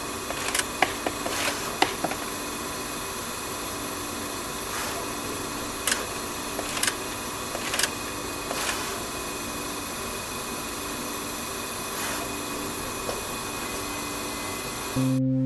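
SMT pick-and-place machine running: a steady whir of its motors with irregular sharp clicks as it picks HDMI connectors from the tape feeder and places them on circuit boards.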